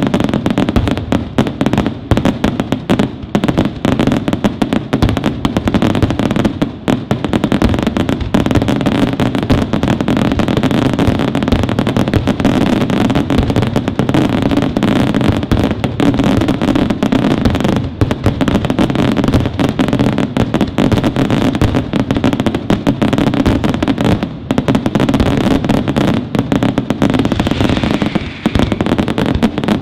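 Dense, unbroken barrage of aerial firework shells and salutes bursting, many bangs a second with no pause, typical of a display's finale.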